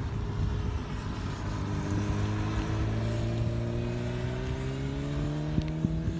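A road vehicle's engine accelerating, its pitch climbing steadily for several seconds, over a rough low rumble, with two sharp knocks near the end.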